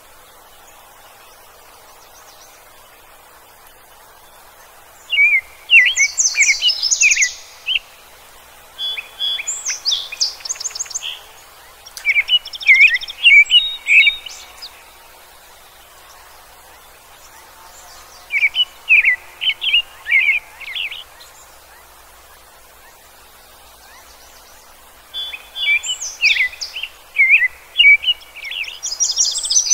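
Birdsong: a songbird sings short phrases of quick chirping notes, each a couple of seconds long with pauses of a few seconds between them, the first about five seconds in, over a faint steady hiss.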